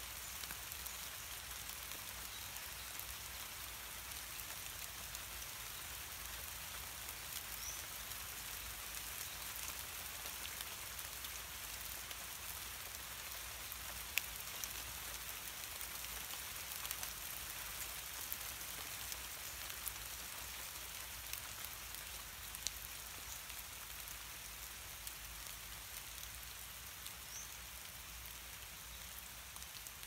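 Steady rain falling on leaves, an even hiss with occasional louder drips ticking close by; it eases slightly near the end.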